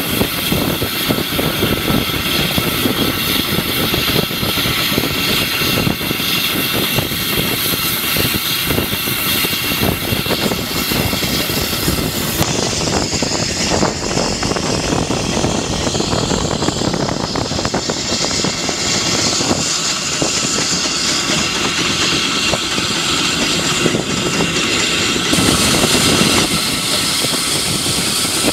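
Peckett 0-4-0 tank locomotive running along the line, heard from beside its cab: a steady rush of wind on the microphone over the rumble of the wheels and running gear on the track. The hiss dulls from about halfway until near the end.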